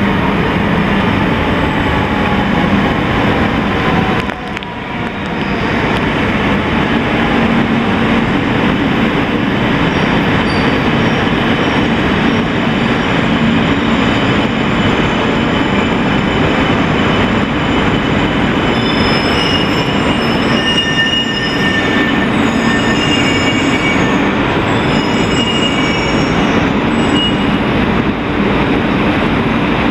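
Tohoku Shinkansen Yamabiko bullet train pulling into the platform and slowing to a stop: a steady rush of running noise, with a whine that falls in pitch over the first few seconds. In the second half come high, thin squeals as it brakes to a halt.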